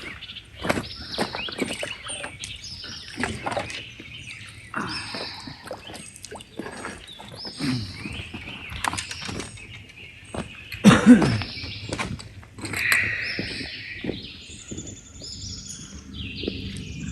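Birds chirping and calling again and again, among frequent short clicks and knocks, with the loudest knock about eleven seconds in.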